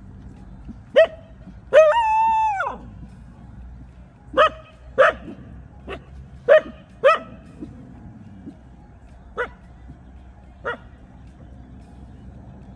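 A dog barking: about nine short barks spaced irregularly, the second drawn out into a steady held yelp nearly a second long, the last two fainter.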